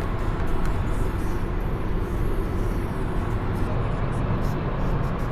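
Car driving along at speed: a steady, deep rumble of road and engine noise.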